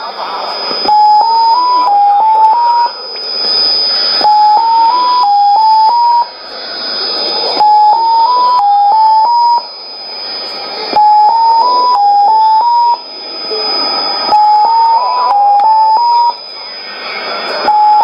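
Unidentified shortwave signal on 9485 kHz, heard in upper sideband through a Sony ICF-2001D receiver. It is a short run of about six beeping tones that step down and back up in pitch, and the run repeats about every three and a half seconds. Hiss and static lie under it, with a steady high whistle.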